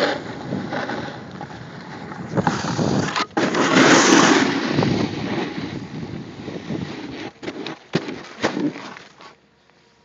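Snowboard sliding and scraping over packed, tracked snow, with wind rushing over the phone's microphone, loudest about four seconds in. A few sharp knocks come near the end, and the rushing dies away just before the end.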